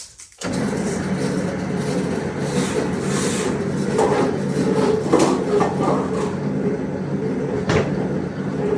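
A shop machine's motor starts abruptly and runs with a steady hum, with a few sharp metallic clanks, as 24-gauge sheet metal is cut.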